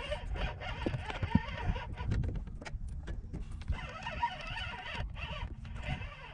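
Wind rumbling on an action camera's microphone, with scattered clicks and knocks from a rod and spinning reel being handled while a fish is played.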